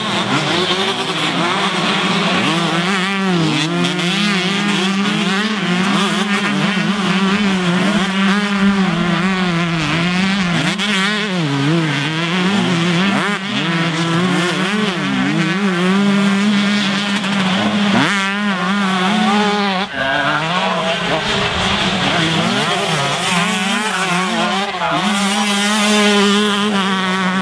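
Several two-stroke motocross bikes racing, their engines revving up and down as overlapping rising and falling whines over a steady engine drone.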